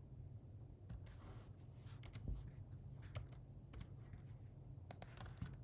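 Computer keyboard keystrokes: scattered, irregular clicks of typing, over a faint steady low hum.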